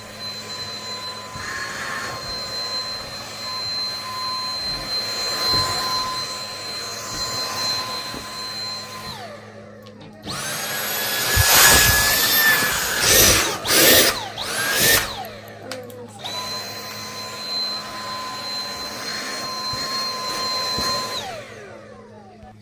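Vacuum cleaner motor whine, steady and high-pitched, that winds down after about nine seconds. A louder, higher whine then runs for about five seconds with sharp surges in level, as if the suction were being blocked and released. The first whine starts again for about five seconds and winds down near the end.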